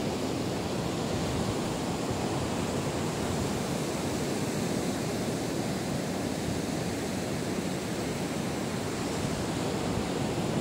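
Steady rushing of ocean surf breaking on a beach, an even wash of noise with no separate events.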